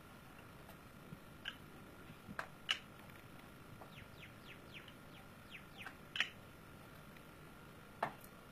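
Birds chirping sparsely over a faint steady high hum: a few short, sharp chirps, with a quick run of little falling chirps near the middle.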